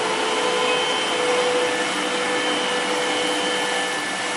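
Twin-screw extruder pelletizing line running: a steady mechanical drone with a few constant tones over an even hiss.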